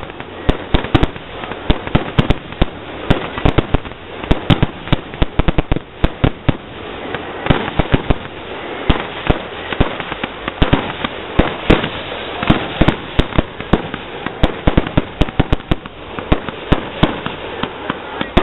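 Fireworks display in a rapid barrage: sharp bangs of shells bursting and launching, several a second, over a steady crackle.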